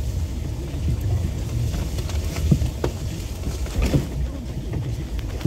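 Vehicle driving slowly over a rough, muddy forest track: a steady low rumble with scattered knocks and clicks.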